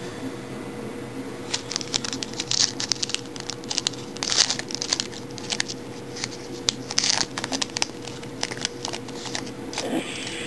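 Trading-card packaging and cards being handled: irregular crinkling and rustling in quick clusters, starting about a second and a half in and easing off near the end.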